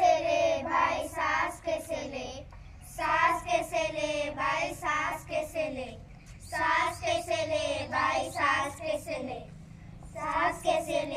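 A child's voice singing in phrases of a few seconds, with short pauses between them.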